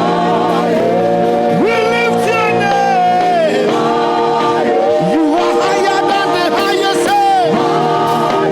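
Live gospel worship music: a singer's voice gliding over steady, sustained instrumental chords.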